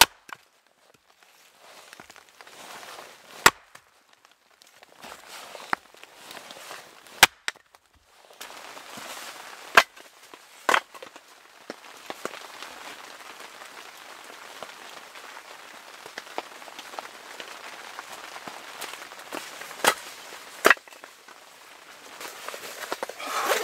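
Axe splitting firewood rounds on a chopping stump: six or seven sharp cracks spaced a few seconds apart, with a steady hiss between them.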